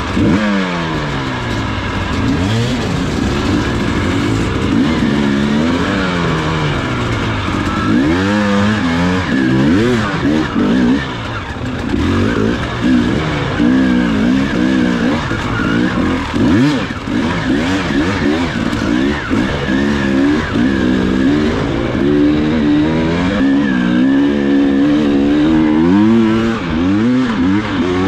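Enduro motorcycle engine under constantly changing throttle, its pitch rising and falling every second or two.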